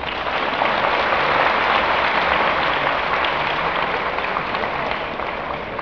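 Audience applauding, breaking out suddenly and slowly dying away.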